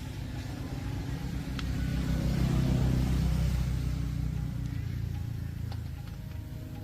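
Vehicle engine running with a low hum that swells to its loudest two to three seconds in and then fades, like a vehicle passing by.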